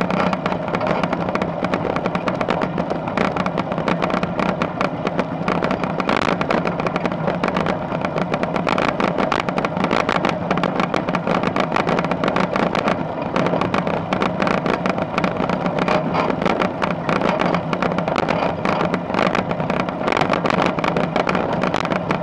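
Ultralight aircraft engine and propeller running steadily, with wind rushing over the microphone in the open cockpit.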